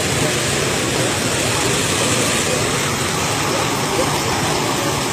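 A tall jet of water shooting up out of the ground and falling back onto the earth and splashing, a steady, unbroken rush of water.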